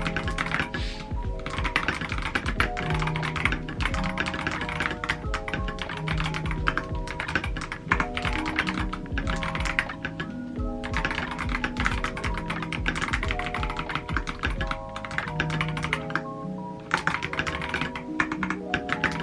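Fast typing on a clear mechanical keyboard, the Yunzii Polar Bear: a dense run of key clacks with a few short pauses, over background music.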